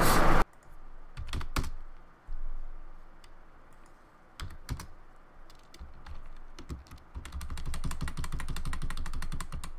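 Computer keyboard typing: a few scattered keystrokes, then a quick run of rapid keystrokes in the last few seconds.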